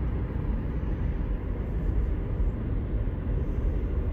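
Car on the move: a steady low rumble of road and engine noise.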